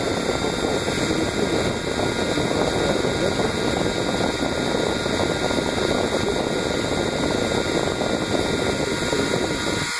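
Small handheld rotary tool (mini drill) with a fine bit running steadily while drilling a small hole in a plastic part. The motor noise stops abruptly at the very end.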